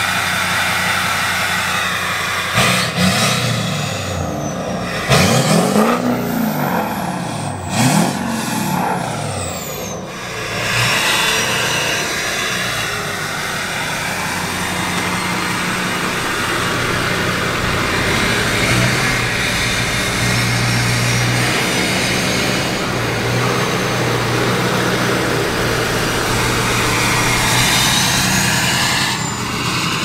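LBZ Duramax 6.6-litre V8 turbo diesel of a 2006 Chevrolet Silverado, heard through a 5-inch straight-pipe exhaust. It idles, is revved in about three short blips a few seconds in with the turbo whistle rising and falling, then runs steadily and pulls away, accelerating near the end.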